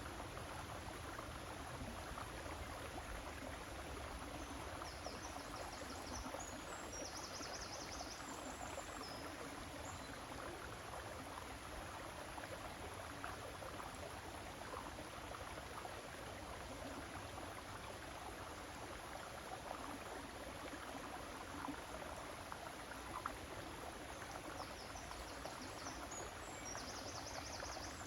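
River water flowing steadily, an even rushing with no change. Faint high chirping comes in twice, about five seconds in and again near the end.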